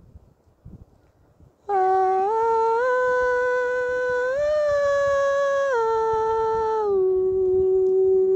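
A person humming a slow tune in long, steady held notes, starting about two seconds in, stepping up in pitch a few times and then back down, with the last low note held for a couple of seconds.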